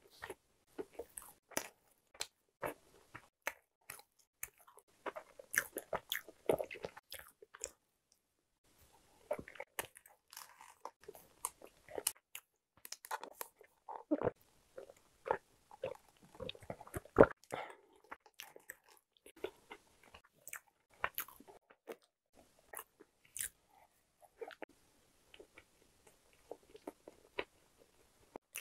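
Close-miked mukbang eating sounds: wet chewing and sharp mouth clicks from eating soft bread and pastry, with a sip through a straw about halfway through.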